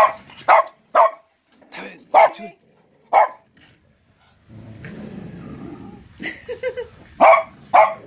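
Dogs barking in play: sharp, short barks in quick succession, a pause and a stretch of low rough sound midway, then barks coming about twice a second near the end.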